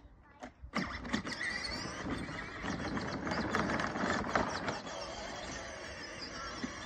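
Electric ride-on toy car driving and towing a garden wagon, its plastic wheels rattling and rolling over pavement and grass. The noise sets in under a second in, with many short clicks at first, then settles into a steady rumble.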